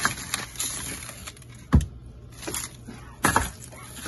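Plastic-wrapped packets of frozen fish clicking and knocking against each other as they are shifted about in a chest freezer, with two heavier knocks, one a little before halfway and one about three-quarters through.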